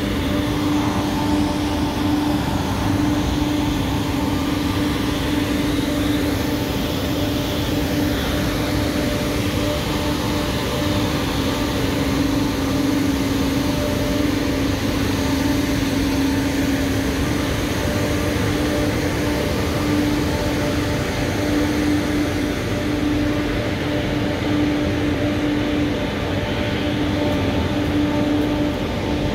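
Steady industrial drone of cement plant machinery: a constant hum with a few fixed tones over a wide rumble.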